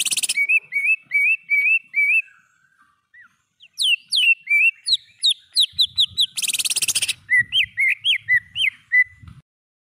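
Cucak ijo (green leafbird) singing a phrase of rapidly repeated, clear whistled notes with two harsh rattling trills, one at the start and one about six and a half seconds in. The song stops shortly before the end.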